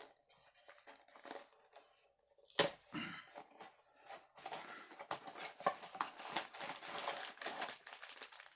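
Mystery-mini blind-box packaging being torn open by hand: a sharp snap a little over two seconds in, then steady crinkling and rustling of the wrapper.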